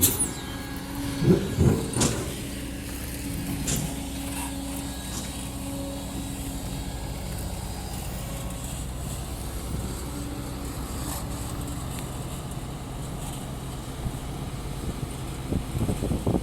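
Diesel engine running steadily, with a few sharp knocks in the first few seconds and some clattering near the end.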